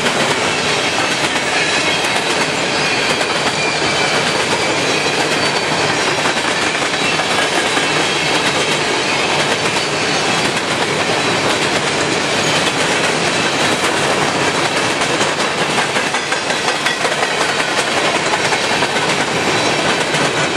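Empty coal hopper cars of a long freight train rolling past close by: a loud, steady noise of steel wheels running on the rails.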